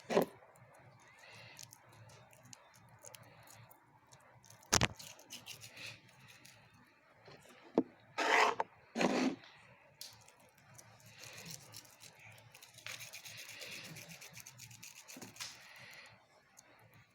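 Rubbing and scraping noises with scattered light clicks, two short louder scrapes about eight and nine seconds in, and a steadier hissing rub near the end.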